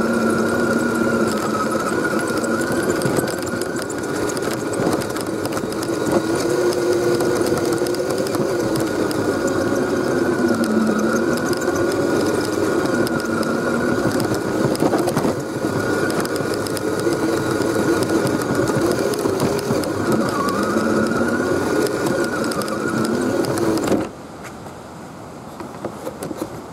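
Axial SCX10 RC crawler's electric motor and gearbox whining, the pitch rising and falling as the throttle is worked, with a steady high tone over it. It stops about 24 seconds in.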